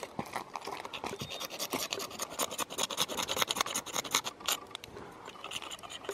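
Dry paper towel, leaves and small twigs crinkling and rustling as fingers work them into a tinder nest: dense, irregular crackles.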